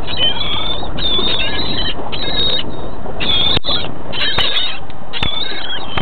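Repeated short, high, wavering squeals, about six in a row, over a steady rush of wind and boat noise.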